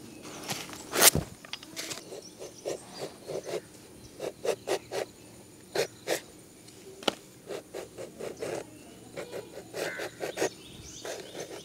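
A curved iron blade shaving the green rind off wedges of ash gourd: a run of short, sharp scraping and cutting strokes at an uneven pace, the loudest about a second in.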